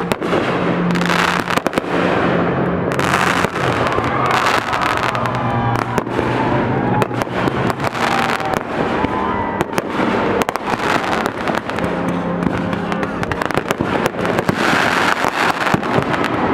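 Aerial fireworks display: a dense, continuous barrage of bangs and crackling.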